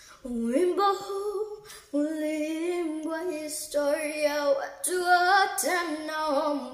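A child singing solo and unaccompanied, a slow melody of held notes in several phrases with a short breath about two seconds in.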